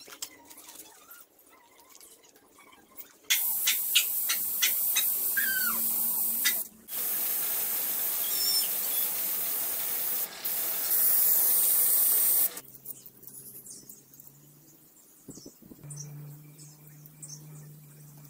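Aerosol spray paint can spraying silver paint onto a motorcycle engine casing: a steady hiss that starts about three seconds in, breaks off briefly twice, is loudest in its last stretch and stops suddenly.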